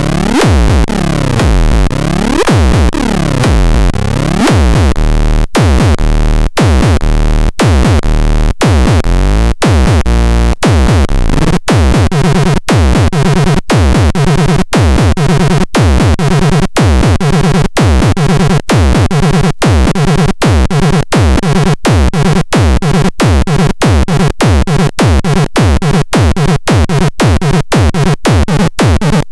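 Minimal techno from a synthesizer and drum machine. It opens with a synth sound sweeping up and down in tone for the first few seconds, then settles into a regular pulsing beat, about one pulse a second at first and around two a second from about twelve seconds in.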